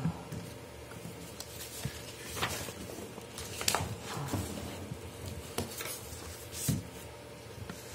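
Sheets of paper being handled and laid out on a table: paper rustling with a few sharp crinkles and taps, the loudest about three and a half seconds in, over a faint steady hum.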